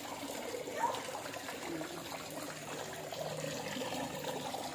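Water trickling and splashing steadily into a koi pond.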